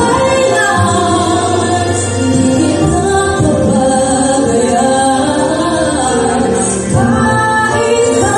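A woman singing into a corded microphone, her voice amplified, holding long notes with a short break about seven seconds in.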